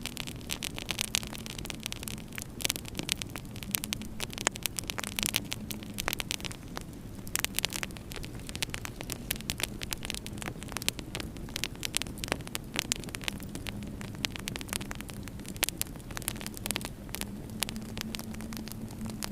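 Wood fire burning in a fireplace, with frequent irregular crackles and sharp pops from the burning logs over a steady low hum.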